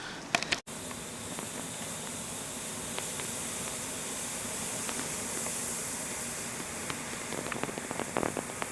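Steady hiss with scattered faint clicks and taps, which come more often near the end; the sound drops out completely for an instant about half a second in.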